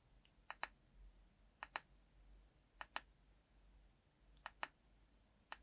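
Wurkkos TS11 flashlight's electronic switch button being pressed five times, each press a quick double click as the button goes down and comes back up, about one press a second.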